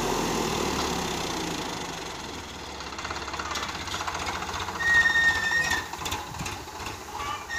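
Sonalika 740 DI tractor's diesel engine running steadily at full speed with a rapid, even beat as the tractor drives over paddy straw to thresh it. About five seconds in, a high whistle-like tone sounds for about a second, briefly louder than the engine, with a shorter one near the end.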